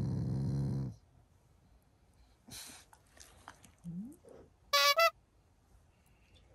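Black Shiba Inu growling, a low steady rumble that stops abruptly about a second in; a playful, affectionate growl, not an angry one. About five seconds in come two short, loud high-pitched sounds.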